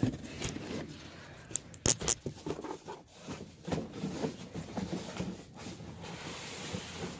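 Handling noise on a phone's microphone: irregular rubbing and scraping as the phone is moved and cloth brushes against it, with a few sharp clicks about two seconds in.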